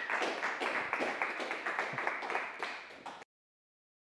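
Audience applauding with many quick hand claps, thinning out and then cut off abruptly about three seconds in.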